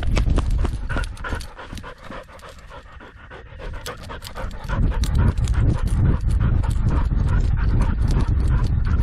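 Dog panting hard right at a harness-mounted action camera, the breaths coming quickly, with knocks and rumble from the dog's movement on the camera. It goes quieter for a couple of seconds about two seconds in, then picks up again.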